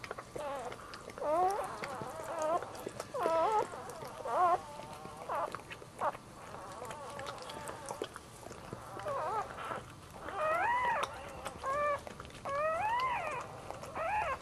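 Newborn dachshund puppy crying in a string of short, squeaky squeals that rise and fall in pitch, coming faster and louder in the second half, with soft clicks of the mother licking it in between.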